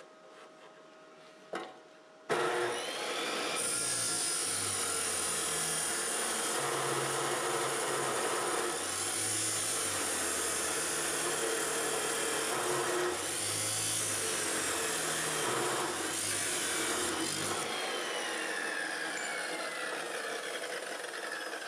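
Electric chop saw cutting 3/8-inch steel plate, starting about two seconds in, with the steady grinding of the disc through the metal. Near the end the cut eases off and the motor's pitch falls as the saw winds down.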